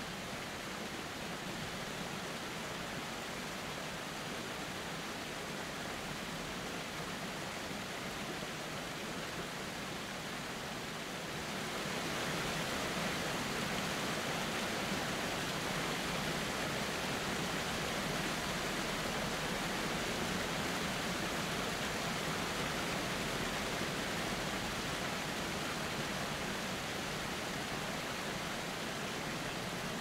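Steady rush of falling water from a waterfall, getting louder and brighter about twelve seconds in.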